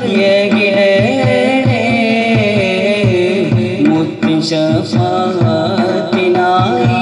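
A group of men singing a qawwali melody together into microphones, with ornamented, sliding notes, over a steady hand-drum beat.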